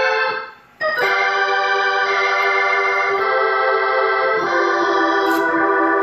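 Freshly restored Hammond C-3 organ heard through a Leslie 147 rotary speaker, playing sustained chords. The first chord cuts off early on, a new chord starts just under a second in, and the chord changes twice more.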